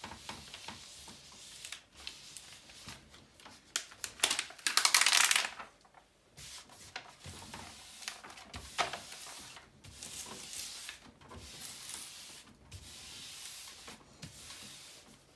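Paper rustling and hands rubbing over a large sheet of release paper as it is smoothed flat on a diamond-painting canvas. A louder burst of rustling comes about four to five seconds in, and shorter rustles follow.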